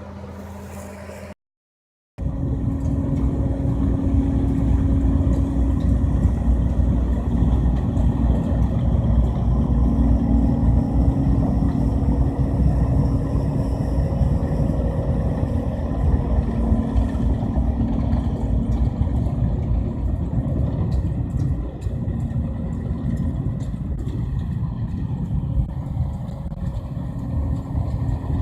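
John Deere C670 combine harvester running steadily under load, with a deep rumble and a steady hum. About a second in the sound drops out briefly, then comes back louder.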